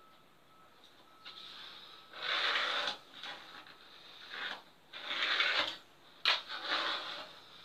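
Pencil scratching lines onto plywood along a straightedge, in three strokes of about half a second to a second each, with one sharp click near the end.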